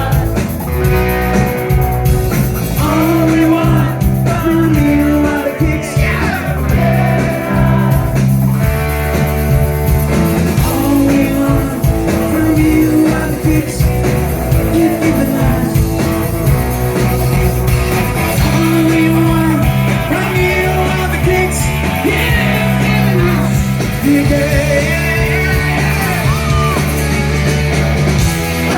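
Rock band playing live, with electric guitar, bass and drums under a sung vocal.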